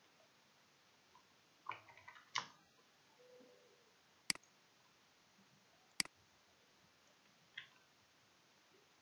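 Computer keyboard and mouse clicks. A few quick key taps about two seconds in, then two sharp mouse-button clicks about a second and a half apart, and a fainter click near the end.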